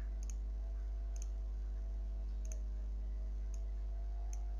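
Computer mouse clicking about five times at irregular intervals, over a steady low electrical hum.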